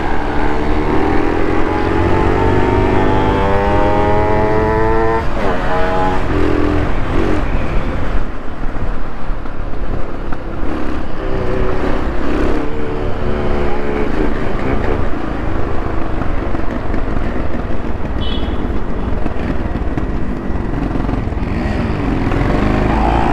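Yamaha RX 135's single-cylinder two-stroke engine pulling hard, its pitch climbing for about five seconds. There is a brief break as it changes gear, a short climb again, and then it runs on at a steadier speed, rising once more near the end.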